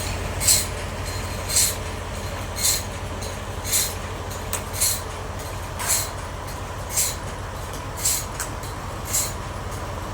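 Sawmill band saw machine running with a steady low hum, and a short high hiss that repeats about once a second.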